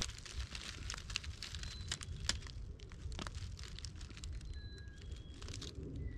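Footsteps crunching through dry leaf litter and brush off-trail, with irregular crackles and snapping twigs.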